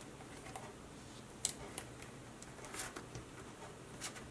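A few scattered small clicks and light scrapes from hands working on the LED strip's small parts and circuit board, the sharpest about a second and a half in.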